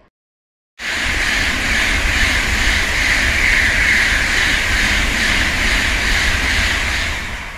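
Tokaido Shinkansen train passing: a loud, steady rushing noise with a low rumble underneath. It starts abruptly about a second in and begins to fade near the end.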